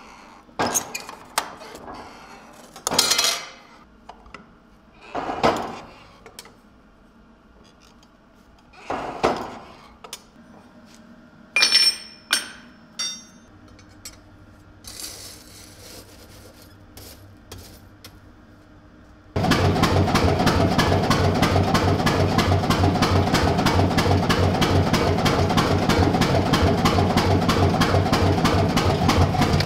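Hand-lever bench shear cutting sheet steel: a handful of separate metallic clanks and scrapes spread over the first half. About two-thirds in, a fast, steady run of hammer blows starts abruptly as the sheet is forged between steel blocks on the anvil.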